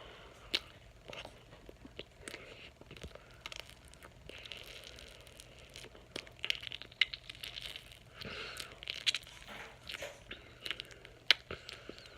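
Mouth sounds of a person chewing marshmallow and squishing it through the teeth: irregular wet crackles, clicks and smacks, busier in the second half.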